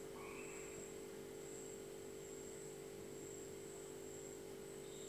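A faint steady hum with a low, even hiss, and no distinct events.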